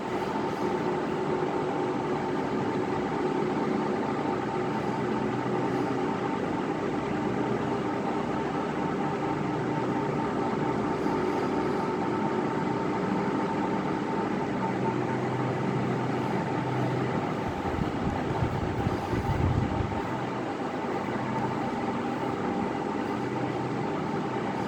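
Ikia ceiling fan running normally: a steady motor hum over an even rush of noise. A brief low rumble swells up a little past two-thirds of the way through.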